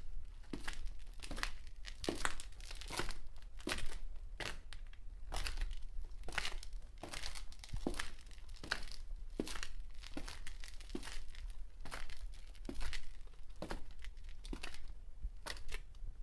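Footsteps walking fast on concrete: a steady run of sharp, gritty scuffing steps, about two to three a second.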